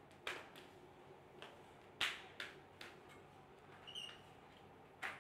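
A few faint, irregular taps and clicks in a quiet room, the loudest about two seconds in, with a brief high squeak about four seconds in.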